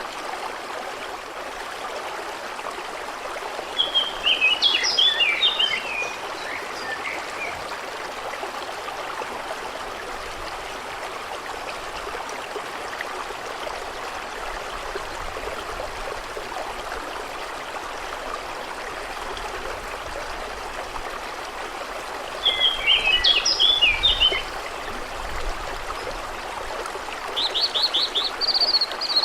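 Steady rushing of a flowing stream, with a songbird singing a short twittering phrase twice, about four seconds in and again near 23 seconds, and a quick run of repeated notes starting near the end.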